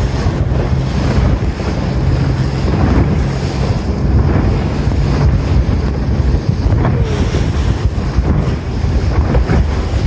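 Wind buffeting the microphone aboard a tour boat, over a steady low rumble from the boat's engine and the sea.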